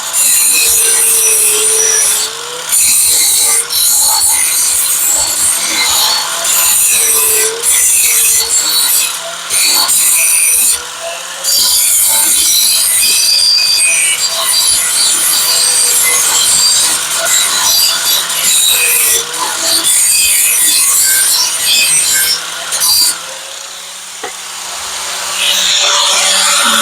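Angle grinder cleaning up fresh welds on a steel shock mount, its motor pitch dipping and recovering as it is pressed into the metal. It lets off briefly a few times, and for a couple of seconds near the end, before biting in again.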